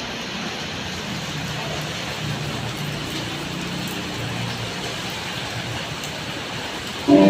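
Steady rainfall, an even hiss, with a low vehicle hum underneath. Music comes in abruptly near the end.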